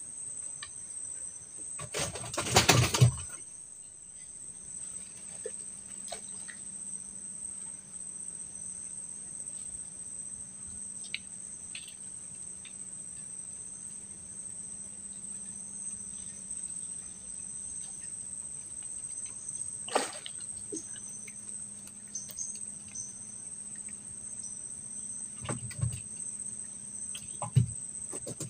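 Steady, high-pitched insect chorus, like crickets, with a loud noisy burst lasting about a second a couple of seconds in and a few sharp knocks later on.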